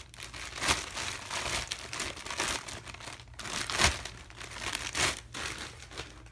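Plastic packaging around a newly unboxed doll table crinkling and rustling as it is handled, in irregular bursts, with louder crackles about a second in, near four seconds in and about five seconds in.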